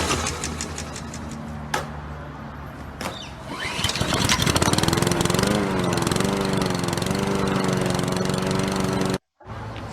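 Small lawn mower engine running at a low, steady note with a few clicks, then revving up about three and a half seconds in and running louder with a wavering pitch; it cuts off abruptly near the end and a fresh low engine note begins.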